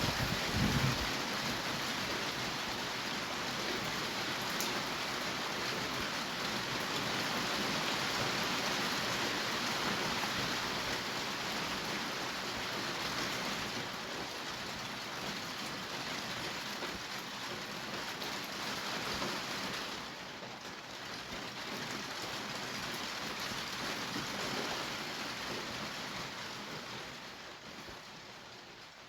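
Steady heavy rain falling, with the last of a thunder rumble dying away about a second in. The rain fades lower near the end.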